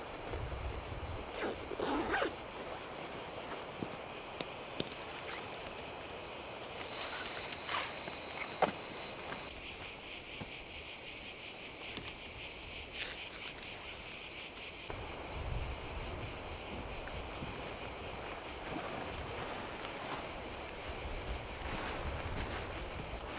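Steady, shrill insect chorus in a pine forest, growing louder about halfway through. Occasional rustling and a few sharp clicks come from camping gear being handled.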